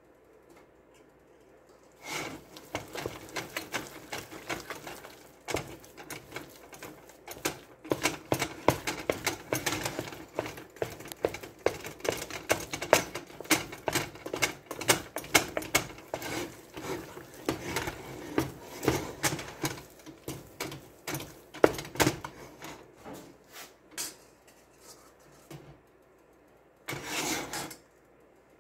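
Wooden spoon beating a thick dough of flour, chicken broth, butter and eggs in a stainless steel pot: rapid, uneven clacking of the spoon against the pot, starting about two seconds in and stopping shortly before the end, then a brief burst of noise near the end.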